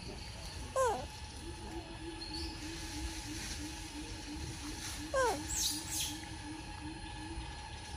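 Forest ambience: a bird repeating a low hooting note about three times a second, with two short, loud calls sliding down in pitch, one about a second in and one about five seconds in, and a few faint high chirps.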